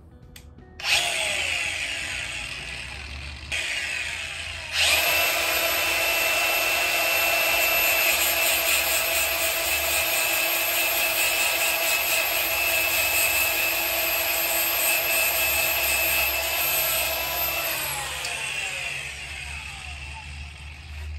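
Handheld electric power tool motor starting up about a second in, easing briefly and running up again around four to five seconds, running steadily at high speed, then coasting down with a falling whine from about eighteen seconds.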